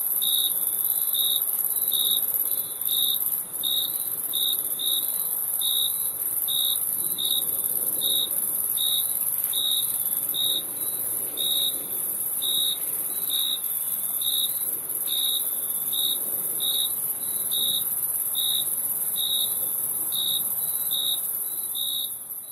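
Crickets chirping: a steady, very high-pitched trill runs under a lower chirp that repeats evenly, about three times every two seconds.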